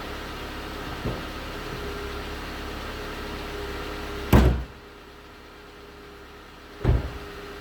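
2019 Hyundai Tucson 2.0L GDI Nu four-cylinder engine idling cold, with the knocking the owner calls piston slap. Two loud thumps come about four seconds in and near the end, and the engine sounds muffled between them.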